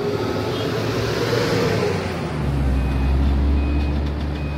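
City street traffic: a vehicle engine rising then falling in pitch as it passes, then a heavy vehicle's deep engine rumble from about halfway, with a reversing alarm beeping a little more than once a second.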